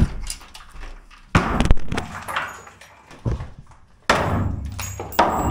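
Wooden walk boards being pried loose and pulled off the concrete forms. There is a sharp knock at the start, heavy wooden bangs about a second and a half in and again past three seconds, then a longer rough scraping noise near the end.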